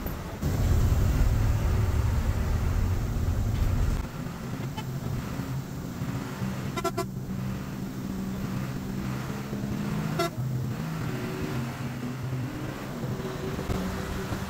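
Hino 1J coach on the move, its diesel engine running with a steady drone and a heavy low rumble for the first few seconds. A horn sounds in two short blasts about three seconds apart as the bus overtakes a truck.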